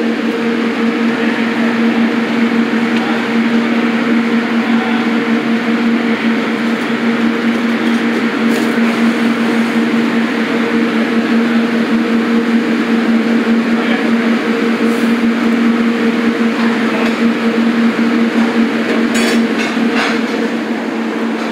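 Steady, loud mechanical drone of a commercial kitchen, a constant hum under an even rushing noise, as from ventilation fans and open gas burners; a few light clicks near the end.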